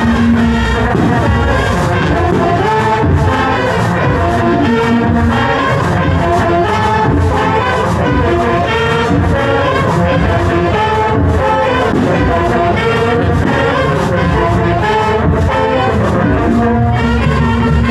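Marching band playing: brass carrying the melody over a steady drum beat.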